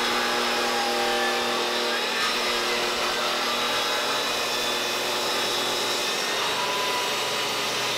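Bosch jobsite table saw running steadily, its motor giving a whine over a rushing noise, as a black-stained board is pushed along the fence through the blade.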